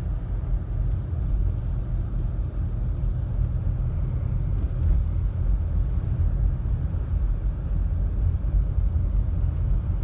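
Steady low rumble of a car driving, heard from inside the cabin: engine and tyre noise on the road, with no distinct events.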